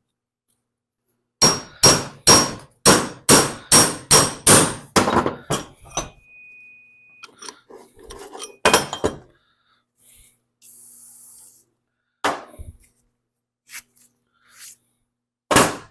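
Hammer blows on metal, about a dozen ringing strikes at roughly three a second, then a few scattered knocks and clinks: driving stuck, rusted bearings out of a cast iron mower blade spindle housing.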